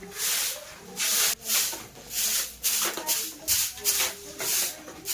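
A jhadu (hand broom) sweeping a floor in quick, regular swishing strokes, about two a second.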